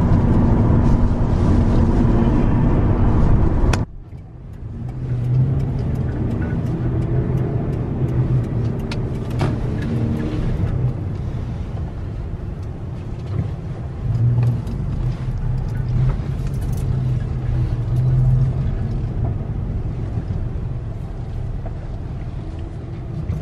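In-cab engine and road noise of a Toyota Tacoma X-Runner's 4.0-litre V6 on its stock exhaust, driving with the window cracked. It cuts off about four seconds in to a quieter steady vehicle engine hum that swells a few times.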